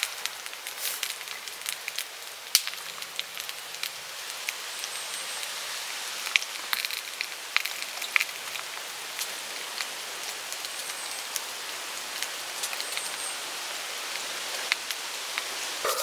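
Sausages sizzling in a flat frying pan over a small wood fire: a steady hiss with frequent sharp pops and crackles.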